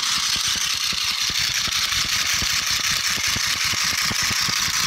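Battery-operated flying bald eagle toy running: its small electric motor and gear train whir steadily with a rapid clicking clatter as the wings flap.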